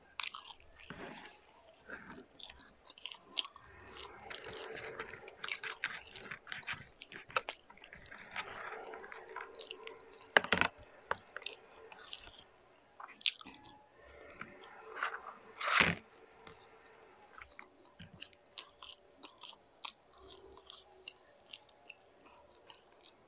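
A person eating close to the microphone: chewing and biting food, with many short sharp mouth clicks. The two loudest bites come about ten and a half and sixteen seconds in.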